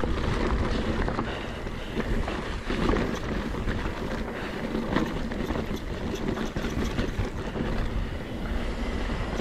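Wind buffeting the helmet camera's microphone over the steady noise of mountain bike tyres rolling on a rough dirt trail, with the bike's frame and parts rattling in scattered sharp clicks.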